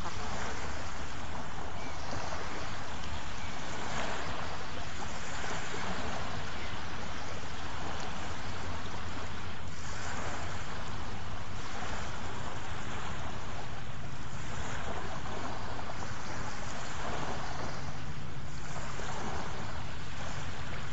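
Sea waves washing in, a steady rush of water that swells and fades every couple of seconds, over a constant low hum.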